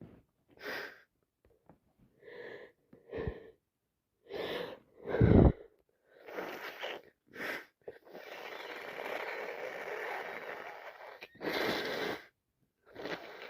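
A woman with a heavy head cold sneezing wet sneezes over and over, with sniffs and gasping breaths between them; the loudest sneeze comes about five seconds in. About eight seconds in there is one long noisy rush of breath lasting about three seconds, then another sneeze.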